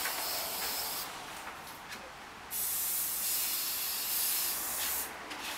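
Aerosol spray-paint can hissing in two bursts: a short one at the start that fades about a second in, then a longer, louder one from about two and a half seconds in that stops near the end.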